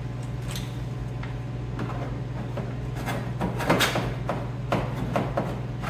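Scattered clicks and knocks of hand work on plastic parts, loudest and thickest around three and a half to four seconds in, over the steady low hum of a furnace running.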